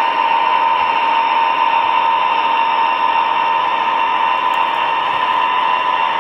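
O gauge model diesel locomotive running, giving a steady, even engine drone with a high hum over it.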